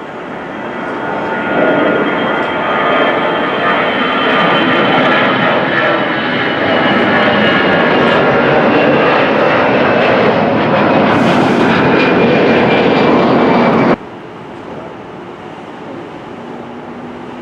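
Jet airliner engines passing close by, loud, with a high whine that slowly falls in pitch. The sound swells about a second and a half in and cuts off suddenly near the end.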